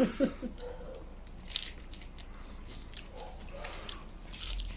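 A few light clicks and soft handling noises as a cabbage-leaf rice wrap is held and folded, then a bite into the leaf wrap and chewing near the end.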